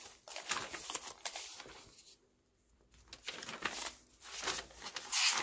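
Paper pages of a handmade journal rustling as hands turn a page and smooth the spread flat. The rustling comes in several bursts, with a short pause a little after two seconds and the loudest burst near the end.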